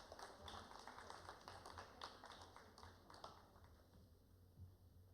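Faint scattered clapping from an audience, dying away about three seconds in.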